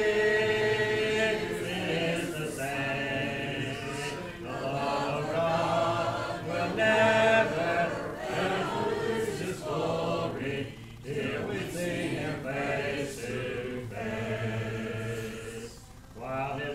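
A congregation singing a hymn a cappella in parts, men's and women's voices together with no instruments, pausing briefly between lines.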